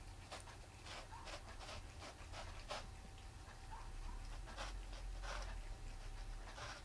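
Cats licking and nosing at silvervine on a corrugated cardboard scratcher: short, irregular rasping sounds, about two a second.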